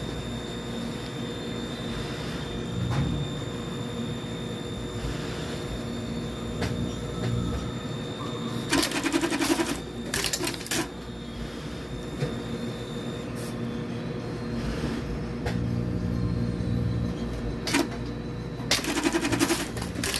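Button-attaching machine running in short bursts of rapid clattering strokes, once about nine seconds in and again near the end, over a steady machine hum.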